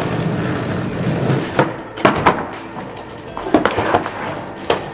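Skateboard wheels rolling over rough asphalt, then from about a second and a half in a scatter of sharp clacks and knocks as the board is popped and strikes the wooden box and the pavement.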